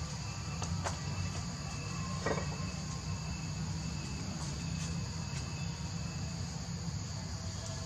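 Steady high-pitched insect chorus droning without a break, over a low steady rumble, with a brief faint call or knock about two seconds in.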